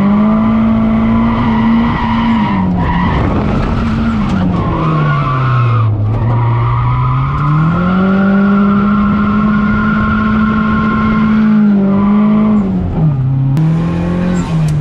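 Nissan 240SX's turbocharged SR20DET four-cylinder held at high revs through a drift, heard from inside the cabin, with tires squealing. The revs dip briefly, fall sharply about five seconds in and climb back, then drop again near the end.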